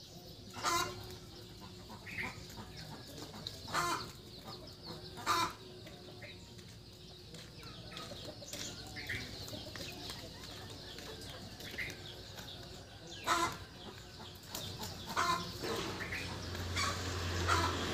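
Domestic fowl giving scattered short calls, a handful spread out with several more near the end. Faint high chirps of small birds come between them.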